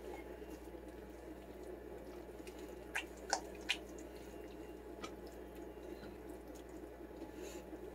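Spatula stirring a thick, creamy chicken and cheese sauce in a stainless steel skillet: soft wet squishing, with three sharp clicks about three seconds in as the spatula knocks the pan. A steady low hum runs underneath.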